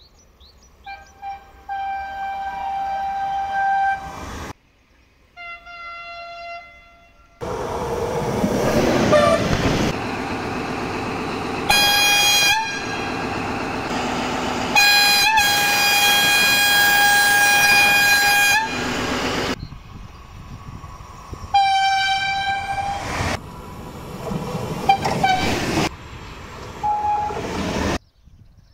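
Train horns sounding in a string of short clips: several blasts of a second or two, and one long steady blast of about three and a half seconds in the middle. The rumble of a passing train runs between the horns.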